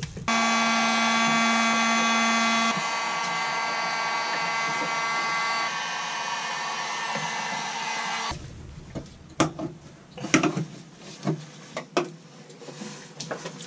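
A heat gun blowing steadily for about eight seconds, dropping a step in level twice. Then a hard scraper scrapes and clicks irregularly as it peels heat-softened asphalt sound-deadening mat off the car's sheet-metal floor.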